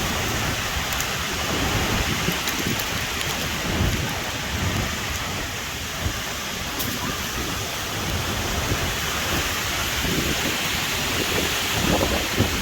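Heavy rain pouring steadily in a thunderstorm with strong wind, with uneven low rumbling underneath.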